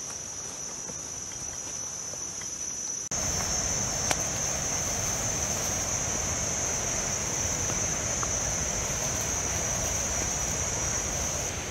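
Steady high-pitched drone of forest insects. About three seconds in it gets louder, and an even rushing background noise comes up under it.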